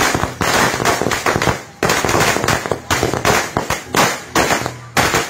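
A string of firecrackers going off on the ground. It makes a rapid, irregular run of sharp cracks, several a second, with a short lull about two seconds in.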